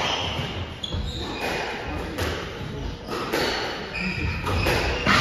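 Squash rally: the ball is struck by rackets and smacks off the court walls, several sharp hits about a second apart, echoing in the hall.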